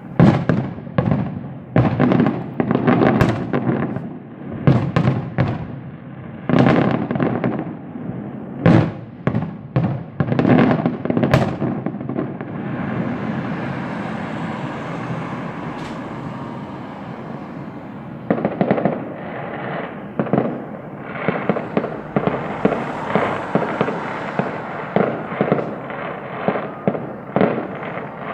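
Fireworks going off: a series of loud, sharp bangs, then a steady hiss for several seconds, then a fast string of bangs about one to two a second.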